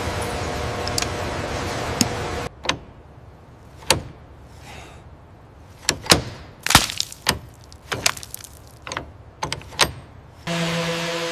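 A steady machine noise cuts off about two and a half seconds in. A string of irregular sharp knocks and clicks follows, and another steady machine noise starts abruptly near the end.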